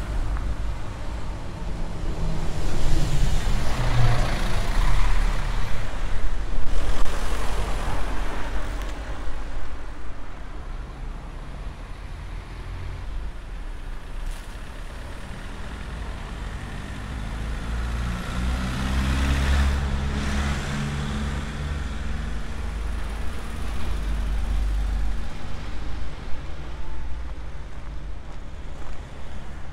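Street traffic: motor vehicles driving past, their engine hum swelling twice, the second time with the engine note rising as a vehicle accelerates.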